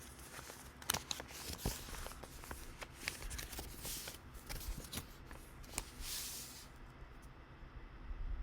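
Rustling with many scattered sharp clicks; the hissy rustle drops away about two-thirds of the way through, leaving a quieter stretch with a few clicks.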